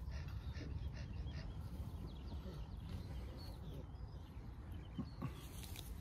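Faint bird calls, short chirps scattered throughout, over a steady low rumble, with two light knocks about five seconds in.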